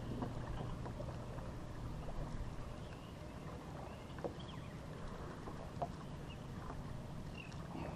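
Steady low rumble of wind and lake water around an anchored bass boat, with a few faint clicks scattered through it.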